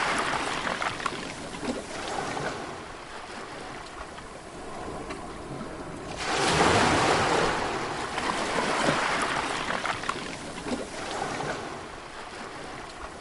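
Sea waves breaking and washing up on the shore in repeated swells. A larger wave crashes suddenly about halfway through and is the loudest moment, then slowly fades.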